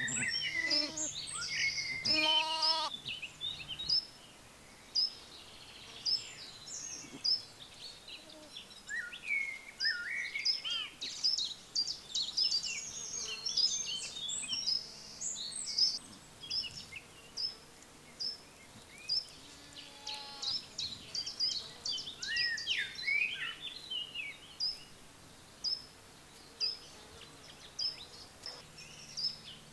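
Several small songbirds chirping and singing in quick, overlapping phrases, with a lamb bleating once about two seconds in.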